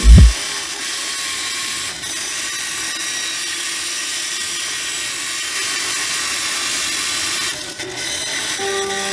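A power tool running steadily on the workpiece with a hissy, high-pitched sound, after a short loud low thump at the very start.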